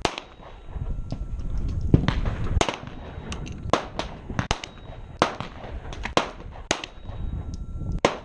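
Gunshots at an outdoor shooting range: about a dozen sharp reports at uneven intervals, some louder than others.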